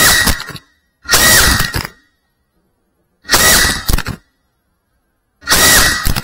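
Four loud crash-like hits, each under a second long and evenly spaced about two seconds apart, with dead silence between them; no drone motor is heard.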